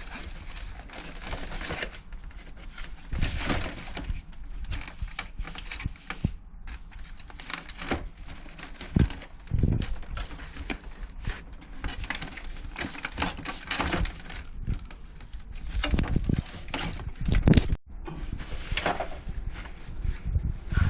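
Irregular knocks, clicks and crinkling from hands handling and working on parts, with a few louder knocks near the end.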